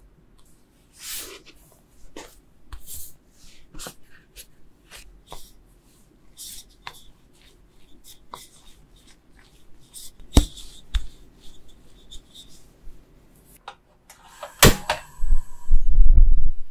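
Soft rustles and light taps of hands pinching and pressing dough, then a wooden rolling pin rolling it flat on a wooden board. Near the end, a sharp click from a gas stove's igniter, then the low rumble of the lit gas burner, the loudest sound here.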